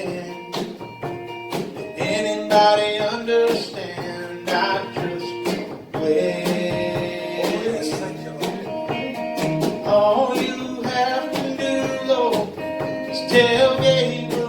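Country gospel band music with guitar, an instrumental passage between sung lines.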